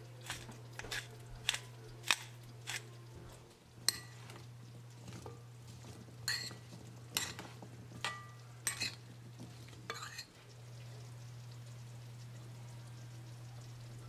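Metal fork clinking and scraping against a white glass mixing bowl while seasoned carrot chunks are stirred and tossed, some taps ringing briefly. The clinking stops about ten seconds in, leaving only a steady low hum.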